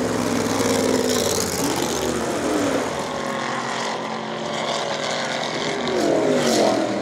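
Stock Car race car's 550 hp V8 engine revving, its pitch falling early and climbing again about six seconds in.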